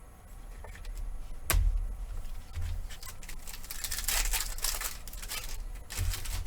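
Trading cards and a card pack's wrapper being handled: a sharp click about a second and a half in, then a few seconds of crinkling and rustling, with a few more light clicks near the end.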